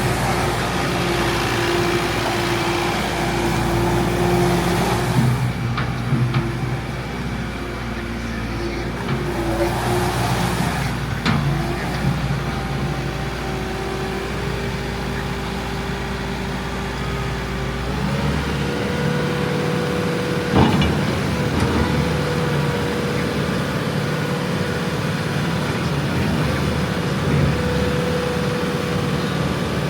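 Doosan D34 diesel engine of a 2019 Bobcat S850 skid steer loader running, its pitch shifting at about five, twelve and eighteen seconds in as the engine speed changes. A couple of sharp clanks are heard, the clearer one about twenty seconds in.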